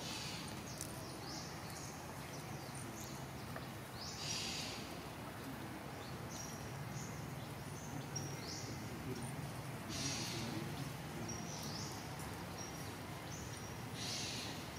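Forest background with small birds chirping: short, high, thin notes repeating every second or so. Brief hissing bursts come about four seconds in, around ten seconds and near the end.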